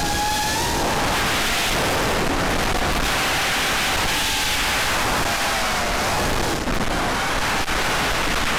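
Loud, steady rushing hiss of wind and propeller wash on the onboard camera of an FPV racing quadcopter in fast flight, with the whine of its Cobra 2204 2300kv motors heard faintly in the first second and again around the middle.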